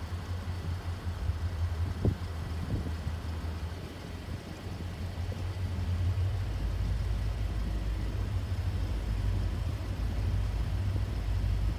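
Two diesel locomotives hauling a freight train at low speed in the distance, heard as a steady low engine rumble that deepens about halfway through. A single short knock comes about two seconds in.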